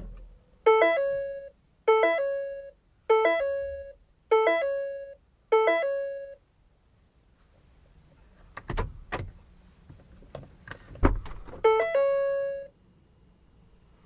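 Car's warning chime beeping with the car open: five identical two-note chimes about a second apart, each a short lower note stepping up to a held higher one. A few sharp clicks and thumps follow, then one more chime with a longer held note near the end.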